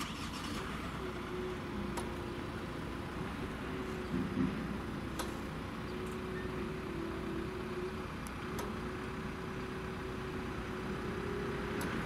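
A motor vehicle's engine running steadily with a constant hum, with a few faint clicks.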